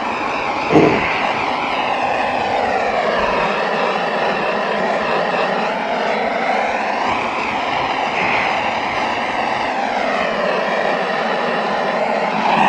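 Propane torch burning steadily, its flame hissing as it heats the end of a plastic water line to soften it for a barb splice fitting. A single knock about a second in.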